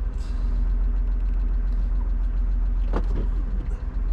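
Engine idling steadily, with a short click or knock about three seconds in.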